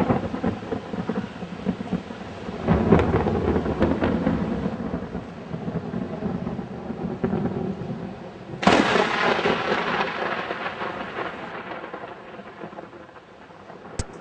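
Hurricane storm noise: three heavy crashes, one at the start, one about three seconds in and one near nine seconds, each dying away slowly into a dense rushing wash.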